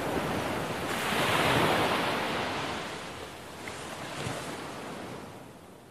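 Sea waves breaking and washing up the shore, swelling about a second in and then slowly fading away.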